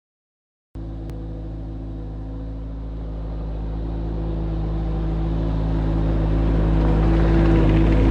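Bobcat 763 skid steer's Kubota diesel engine running at a steady speed. It cuts in abruptly about a second in and grows steadily louder.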